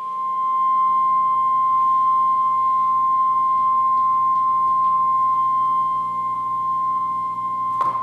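A loud, steady, high electronic tone played over the theatre's sound system, held unchanged for about eight seconds and then cut off suddenly with a click.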